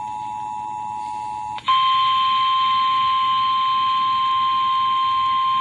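Emergency Alert System alert tones: the steady two-tone attention signal cuts off about a second and a half in, and after a brief break a single steady, slightly higher NOAA Weather Radio warning tone sounds. These tones announce a tornado warning.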